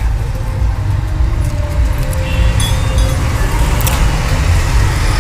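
Small metal gearbox parts clinking and jingling a few times near the middle as they are handled in their plastic wrapping, over a steady low rumble of machinery.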